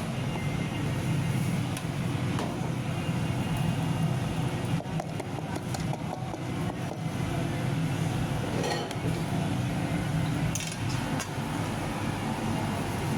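Steady low rumbling noise of kitchen cooking, with a few light clinks of a metal utensil against a pan in the second half.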